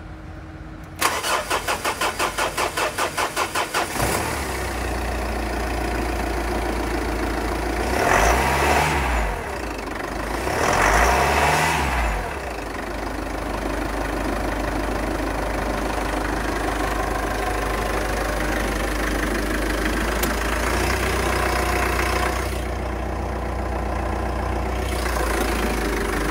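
Mitsubishi Triton's DI-D turbo-diesel engine being started: the starter cranks it in quick even pulses for about three seconds before it catches. It then idles with a steady diesel clatter, is revved up and back down twice, and settles back to idle.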